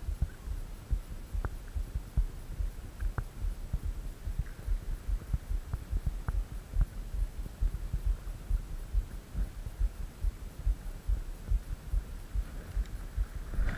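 Dense, irregular low thumping and rumble of handling noise on a body-worn camera, with a few sharp clicks, as a spinning rod is twitched and its reel wound.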